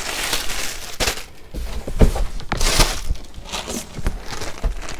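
Plastic packaging crinkling and rustling as a packaged throw pillowcase cover is handled and unwrapped, with several sharp crackles, the loudest about two seconds in.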